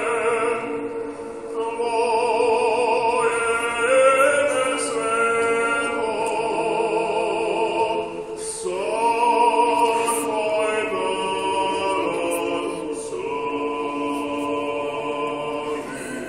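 Mixed Orthodox church choir singing a cappella: long held chords with vibrato that change every few seconds, without instruments.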